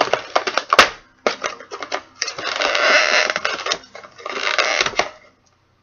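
Toy packaging being handled and pulled apart: dense plastic crinkling and rustling with many small clicks, in two longer rustling spells. It stops about five seconds in.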